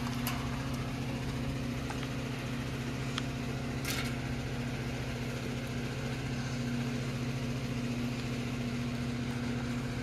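Electric circulation fan running with a steady hum. A short rustle about four seconds in.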